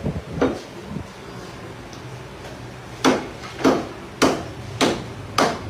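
Butcher's cleaver chopping meat and bone on a wooden block: one chop about half a second in, then five evenly spaced chops a little over half a second apart from about three seconds in.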